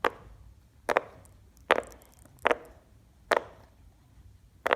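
A big silicone pop-it fidget toy having its bubbles pressed through one at a time: six sharp pops, roughly one a second.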